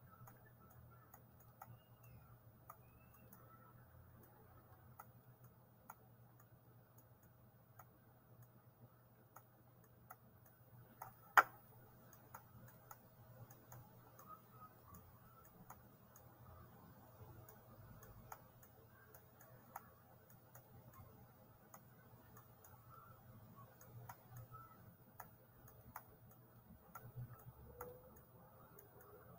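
Faint ticking over a low steady hum, with one sharp, much louder click a little past eleven seconds in.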